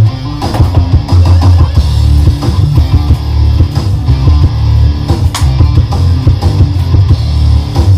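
Loud rock music with heavy bass and guitar.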